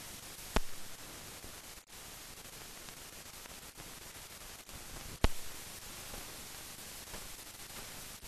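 Steady hiss of an old recording with no aircraft or other sound in it, broken by two sharp clicks, one about half a second in and one about five seconds in.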